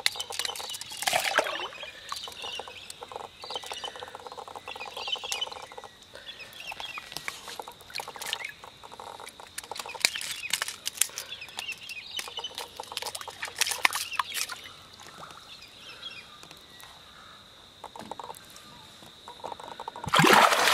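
Birds calling, with scattered clicks and knocks and a steady high-pitched tone throughout.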